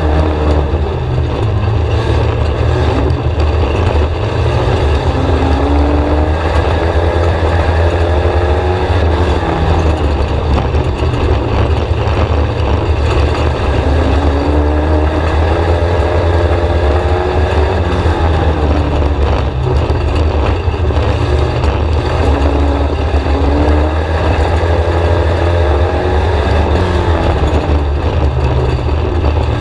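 In-car sound of a VW Scirocco four-cylinder dirt-track race car at racing speed, the engine note rising and falling several times as it accelerates and backs off around the oval, over a heavy constant low rumble.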